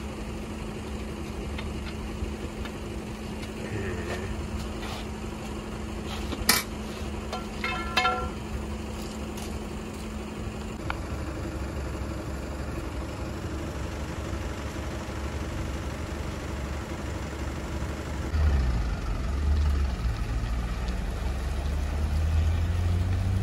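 Tow truck engine idling steadily, with a few sharp metal clanks from the wheel dollies and tow gear being set. About 18 seconds in, the truck's engine picks up and pulls away under load, growing louder toward the end.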